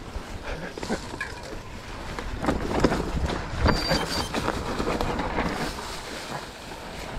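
Mountain bike riding downhill on a dry dirt trail strewn with leaves: tyres rolling over the ground with the bike knocking and rattling over bumps, loudest about two and a half to four seconds in, over a low rumble of wind on the camera microphone.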